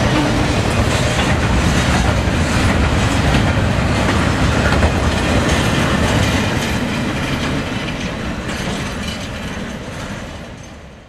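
Freight train of double-stack container cars rolling past at close range, a steady loud rumble of wheels on rail. The sound fades over the last few seconds.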